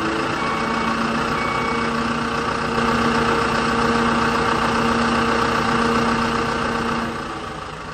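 Truck engine sound effect running steadily over a plastic toy dump truck as it tips its load, a little louder from about three seconds in, then fading away near the end.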